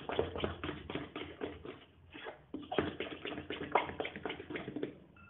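A hand beating thick ground moong and urad dal batter in a stainless steel bowl: quick wet slaps and taps of the batter and fingers against the steel, several a second, with a brief pause about two seconds in.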